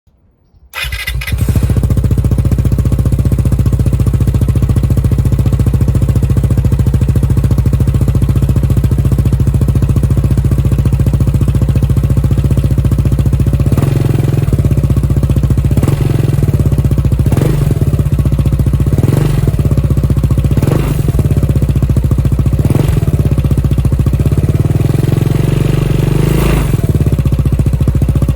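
Italjet Dragster 300's 278 cc single-cylinder engine starting up about a second in and idling through its exhaust. From about halfway it is given a series of short, gentle throttle blips, about seven, each rising and falling back to idle.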